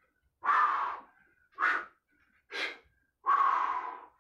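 A man breathing hard under exertion during kettlebell reverse lunges to press. There is a long breath, two short sharp ones, then another long breath.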